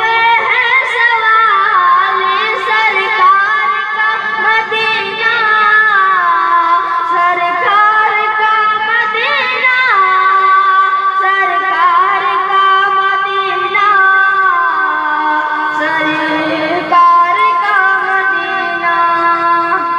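A high voice singing a naat, an Urdu devotional song, through a PA loudspeaker, in long held notes that bend and ornament.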